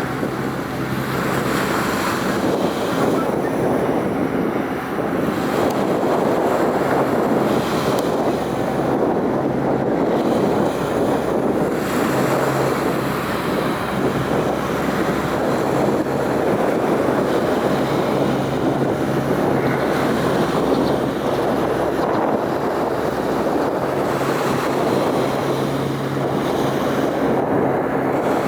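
Wind rushing across the microphone in a steady haze of noise, with a low steady hum that fades in and out every few seconds.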